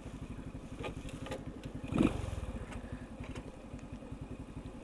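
Motorcycle engine idling with an even, steady pulse, with a short louder sound about two seconds in.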